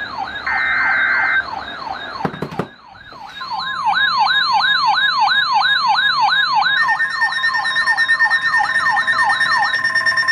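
Weather radio alerting to a Severe Thunderstorm Warning. Short warbling data bursts of the alert header come first, then a wailing siren alert that sweeps up and down two to three times a second. After a brief cut, the steady 1050 Hz NOAA Weather Radio warning tone sounds under the siren, and a second, higher steady alert tone joins about seven seconds in.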